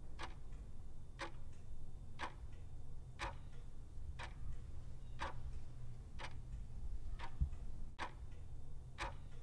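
Ticking clock sound effect, about one tick a second over a low steady hum, counting down the time to answer a quiz question.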